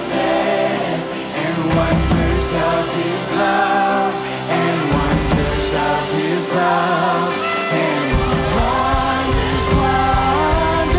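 Live worship song: lead singers and a group of backing voices singing over a band with electric guitar and keyboard, the low end swelling in about eight seconds in.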